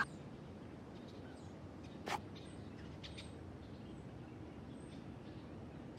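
Quiet outdoor background with faint high bird chirps every second or so, and a single soft click about two seconds in as a small gift box is opened.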